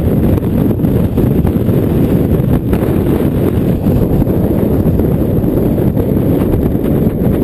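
Strong wind buffeting the microphone: loud, steady low rumbling noise.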